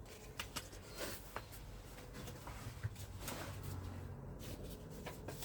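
Faint rustling and scattered small clicks of a piece of peel-and-stick wallpaper being handled, its backing just peeled off.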